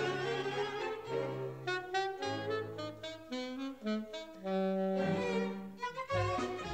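Orchestral cartoon underscore with wind and brass instruments carrying a melody: a run of quick, short notes, then longer held notes stepping in pitch.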